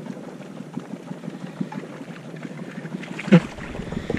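Water sloshing and splashing against a boat hull as a landing net goes in after a striped bass; about three seconds in, a sudden loud splash as the net reaches the fish thrashing at the surface.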